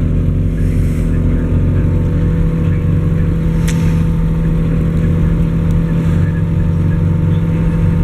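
Nissan car engine idling steadily, with one sharp click about halfway through.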